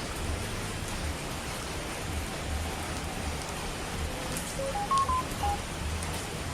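Steady rain noise, with a brief run of about six electronic beeps stepping up and down in pitch, like phone keypad tones, about four to five seconds in.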